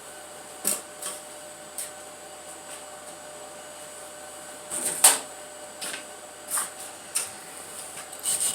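Scattered light clicks and knocks from handling tools and the engine block over a steady background hum, with one louder knock about five seconds in. Near the end, quick rhythmic rubbing starts as the stamped number pad is scrubbed clean.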